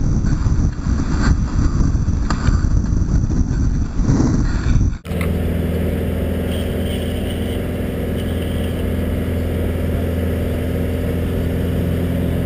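Longboard wheels rumbling on asphalt at downhill speed, with wind buffeting the helmet camera's microphone. About five seconds in this cuts off suddenly to a steady car engine hum heard from inside the cabin.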